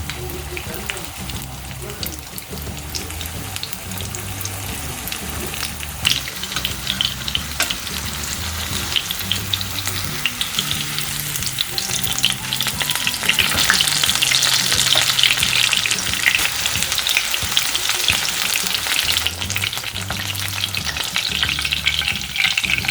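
Breaded chicken tenders deep-frying in hot oil: a steady, dense crackling sizzle that grows louder and busier about halfway through.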